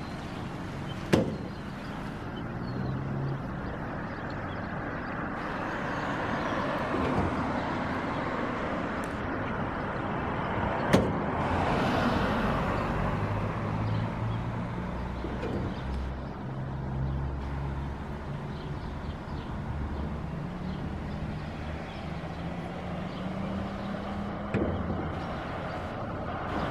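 Car running along a road: steady engine and road noise with the engine note shifting, and two sharp knocks, one about a second in and one about eleven seconds in.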